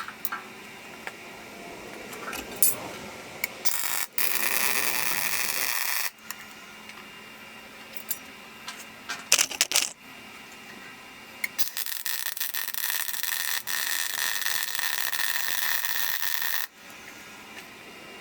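Welding arc crackling in two runs on steel bumper joints, each starting and cutting off abruptly, the second about five seconds long. A few sharp metal clinks come between the runs.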